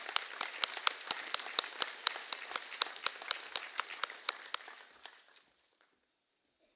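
Audience applauding, with one nearby pair of hands clapping about four times a second above the rest. The applause dies away about five seconds in.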